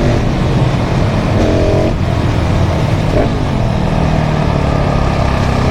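KTM 690 SMC R's single-cylinder four-stroke engine through a full LeoVince exhaust, accelerating on the move. The pitch climbs briefly a couple of times with breaks between, then holds steadier near the end.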